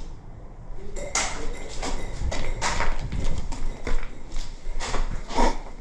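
Irregular scuffing thuds and rustles of footsteps and gear as a player moves, uneven and several to the second, starting about a second in.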